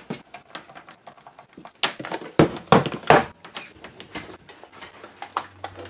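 Handling noise as a Commodore 128 power supply and its cords are moved about and the plastic unit is turned over on a cutting mat: scattered knocks, taps and cable rattles, loudest a couple of seconds in. A low steady hum begins near the end.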